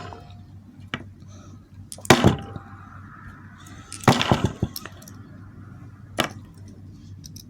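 An old hard-plastic air-conditioner remote control being whacked to break it: three sharp knocks about two seconds apart, the middle one followed by a short rattle of clatters.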